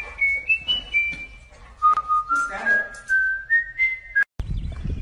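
A tune whistled in clear, held notes that step up and down in pitch, with a few faint clicks. It cuts off abruptly a little over four seconds in.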